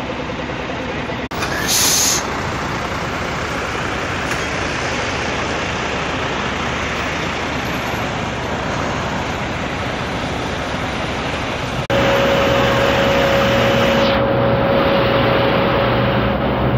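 Heavy trucks running, heard as a loud, even rumble and noise, with a short burst of high hiss about two seconds in. After a sudden break about twelve seconds in, the sound is louder, and a steady whine rides over a lower engine drone.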